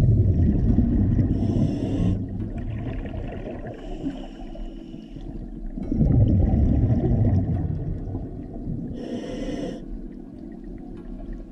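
A scuba diver breathing through a regulator underwater: two long rumbles of exhaled bubbles about six seconds apart, with hissing inhalations through the regulator between them.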